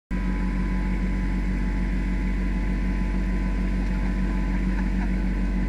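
Kubota tractor's diesel engine running steadily under a constant drone, starting abruptly right at the start.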